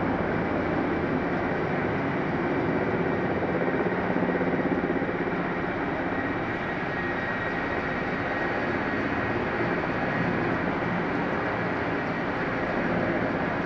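Steady rushing aircraft noise with a faint high whine, heard from inside an airliner's cabin.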